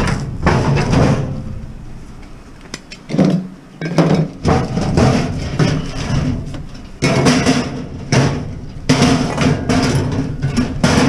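Repeated knocking and clattering of scrap items being handled and packed into a container, with bursts of clatter every second or so.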